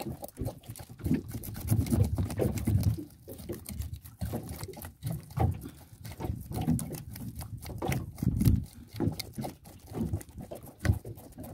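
Knives scaling small snook, a quick run of rasping scraping strokes against the fish and a wooden cutting board.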